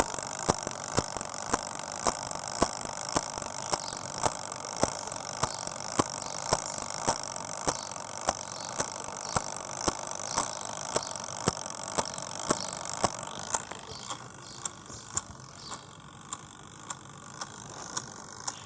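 Countdown timer ticking, about two ticks a second with every other tick louder. A steady hiss runs behind the ticks and drops away about thirteen seconds in, leaving the ticks quieter.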